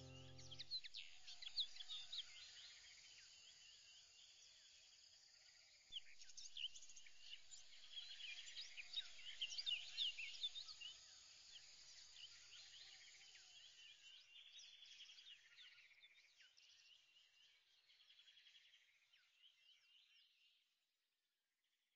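Faint high chirps and twitters like birds singing, busiest a few seconds in, then thinning out and fading away near the end. A music track stops within the first second.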